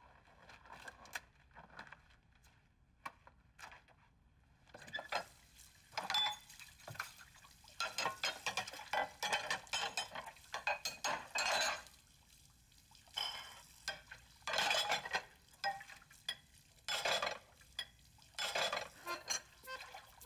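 Dishes and utensils clattering and scraping in irregular bursts, with only faint scattered clicks in the first few seconds.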